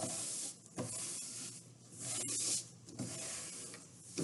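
Hands rubbing a glued paper photo print flat onto cardboard: about four brushing, papery strokes in a row.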